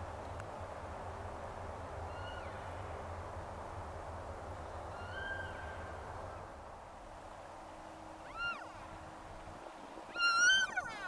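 Cow elk mewing: short, high squealing calls, faint at first, with a louder call of several quick rising-and-falling notes near the end. Steady hiss underneath.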